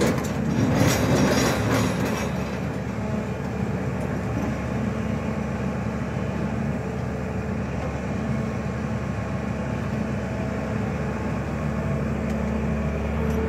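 Diesel engine of a SANY long-reach crawler excavator running steadily under hydraulic load as the boom and arm move, louder and rougher for the first two seconds or so.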